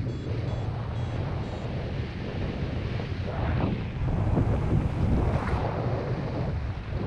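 Airflow in flight buffeting the camera's microphone: a steady, rumbling wind noise that swells and eases. A few faint, short high beeps repeat in the first second or two.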